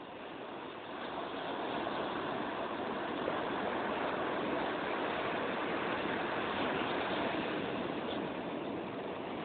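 Ocean surf breaking on a beach: a wave's rush of churning water swells over the first couple of seconds, then holds as a steady wash and eases slightly near the end.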